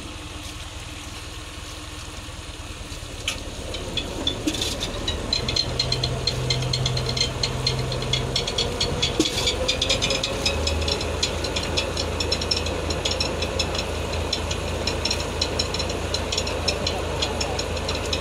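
Tractor engine running a belt-driven pump on a new tubewell. From a few seconds in, a rattle and a hiss join it as air is let out of the pump pipe to prime it, because the pump has not yet drawn water.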